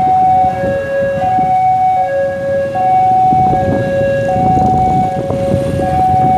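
Railway level-crossing warning alarm sounding a two-tone high-low signal, each tone lasting under a second, alternating steadily: the signal that a train is approaching and the barriers are closing. Street traffic noise runs beneath it.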